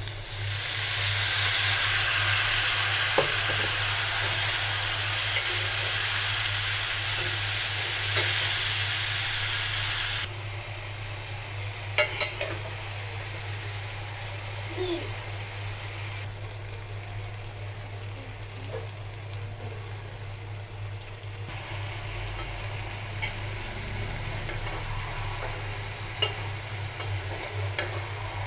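Shredded raw potatoes dropped into hot oil with fried onions in a pan: a loud frying sizzle that starts at once and stays strong for about ten seconds, then drops to a steadier, quieter sizzle. A few sharp clacks of a metal spatula against the pan come as the potatoes are stirred.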